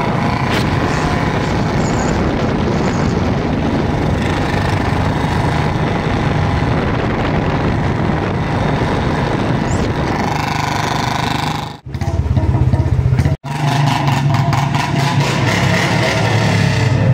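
Wind rush and engine noise from a moving Royal Enfield Bullet motorcycle. After two brief dropouts near the end, the Bullet's single-cylinder engine is heard louder and closer, running with a steady low beat.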